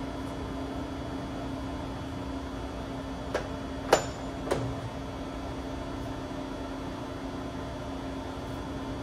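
Three sharp metal clicks within about a second, the middle one loudest with a brief ring, as the apron handwheel and levers of a Willis SK2640 engine lathe are worked by hand. A steady machine hum runs underneath.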